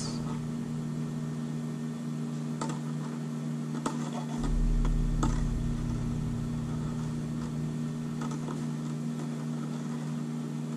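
A steady low hum, with a few faint ticks from thin wire leader being twisted by hand into barrel wraps. A brief low rumble comes about four and a half seconds in.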